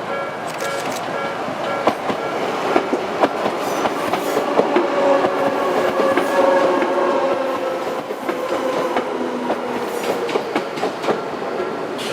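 Odakyu 1000 series electric train passing over a level crossing: wheels clack over rail joints and a whine falls slightly in pitch as it goes by. The crossing's alarm bell rings in a steady repeating pattern until about a second in.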